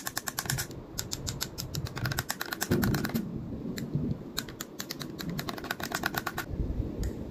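Long metal spoon clinking quickly against the inside of a drinking glass while stirring a soy latte, in several runs of rapid ticks with short pauses between them.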